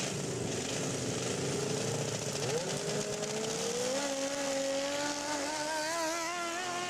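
Racing riding lawnmower engines running hard as the mowers launch down the track; the engine pitch jumps about two and a half seconds in, climbs for another second or so, then holds high with a slight wobble.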